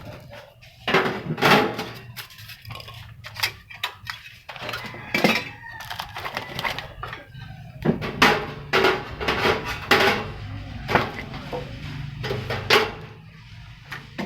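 Metal parts of a hamburger griddle and deep-fryer unit being handled and set in place: a run of irregular clanks and knocks, some sharp and loud, over a low steady hum.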